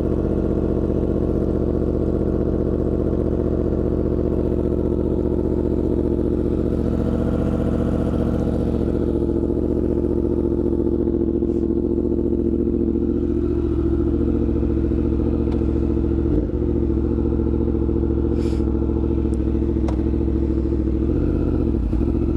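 Yamaha MT-10's crossplane inline-four engine running steadily at a near-constant engine speed, with only small changes in pitch near the end.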